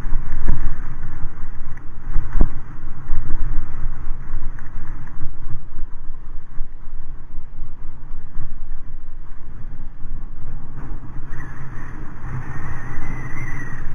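Wind buffeting the camera microphone during a ride over a rough track, a loud continuous rumble with two sharp knocks from bumps, about half a second and two and a half seconds in.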